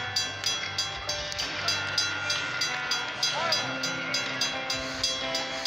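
Railroad grade-crossing warning bell ringing rapidly and evenly, about three strikes a second, over the low steady hum of a Metra commuter train at the crossing.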